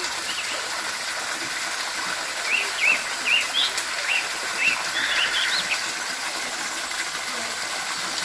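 Waterfall water rushing steadily, with a small bird chirping a quick series of short, rising-and-falling notes over it from about two to six seconds in.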